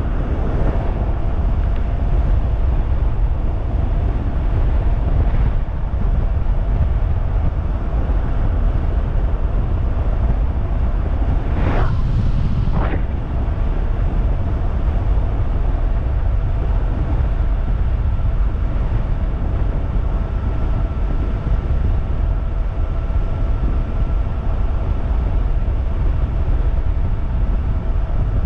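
Wind rushing over the microphone and tyre noise from a 3000-watt DIY e-bike riding at about 45 on the speedometer, with a steady thin whine from its drive throughout. About twelve seconds in, a brief swelling whoosh passes.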